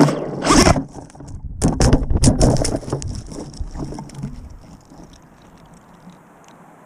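FPV quadcopter's motors spun up hard while caught in a pine tree, the propellers striking branches and needles with a rapid run of sharp clicks. It comes in two loud bursts in the first three seconds, then dies away to a faint hiss.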